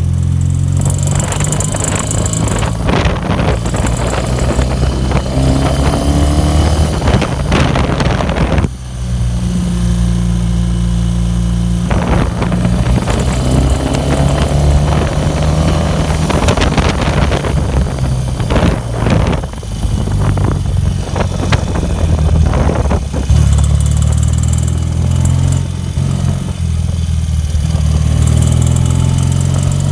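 BMW R60/6 air-cooled flat-twin boxer engine running, its speed rising a few times, with a noise from the valve rocker-arm springs that the owner wants to show.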